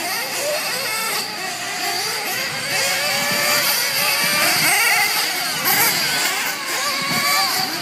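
Several 1/8-scale nitro RC truggies running laps, their small two-stroke glow engines revving up and easing off over and over, several engines overlapping at different pitches.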